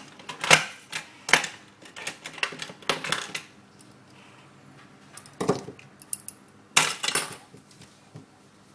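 Small hard clicks and taps of a Nokia 6720 classic phone and its disassembly tools being handled, a few sharp knocks at uneven intervals with a quieter lull in the middle.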